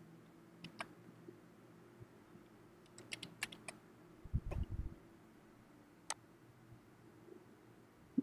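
Sparse computer keyboard keystrokes and clicks: a quick run of key presses about three seconds in and single clicks elsewhere, with one low thump about four and a half seconds in.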